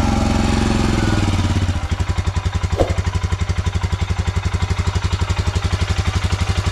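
Royal Enfield Himalayan's single-cylinder engine idling with a quick, even beat.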